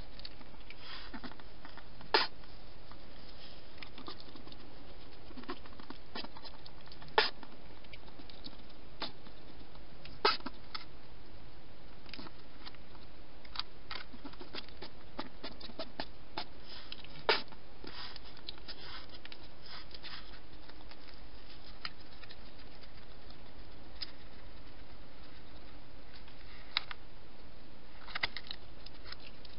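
European hedgehog eating dry food from a bowl: irregular crisp crunches and clicks of kibble, with several louder taps against the dish spread through, over a steady hiss.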